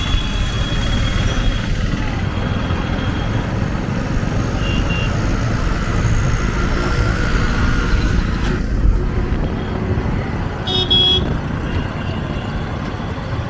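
Street traffic heard from a moving vehicle: a steady low rumble of engines and road noise, with short vehicle horn beeps. The clearest beep comes about 11 seconds in.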